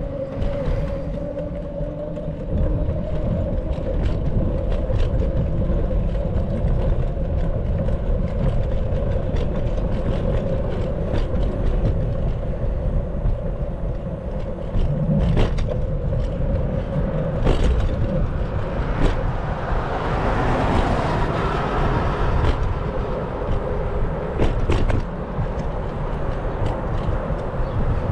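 Riding noise from a bicycle on city streets: a low rumble of wind on the microphone, a steady hum, and scattered clicks and rattles. Street traffic noise swells about twenty seconds in.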